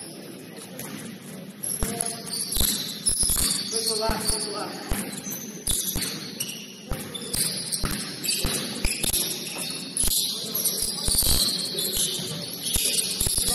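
Basketball game in play: a basketball bouncing on the court in irregular thumps, mixed with high-pitched sneaker squeaks.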